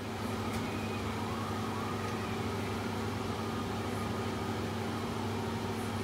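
Steady low motor hum of a kitchen fan, over the hiss of vegetables frying in a pan.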